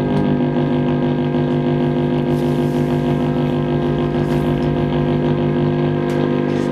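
Steady, buzzing electronic drone of several held tones with a fast flutter, from a light-and-sound installation.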